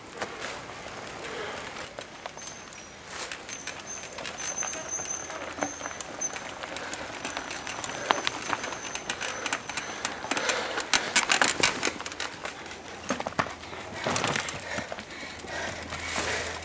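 Mountain bikes going past close by on a dirt trail covered in dry leaves: clattering and clicking from the bikes, with tyres and feet crunching through the leaf litter. The clatter is thickest in the middle and again near the end, and a thin high tone sounds for a few seconds early on.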